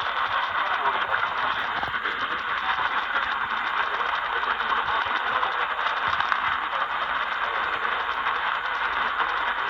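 Radio static: a steady, noisy hiss with fine crackle from a broadcast receiver, with no clear voice or tone.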